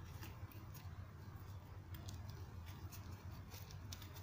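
Nylon webbing belt being handled and worked through a plastic buckle: faint rustling and scattered light clicks over a steady low hum.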